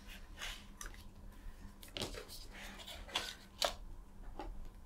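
Light clicks, taps and rustles of a plastic powered-respirator headpiece and visor being handled and slid together, the sharpest clicks a little after three seconds in, over a faint steady low hum.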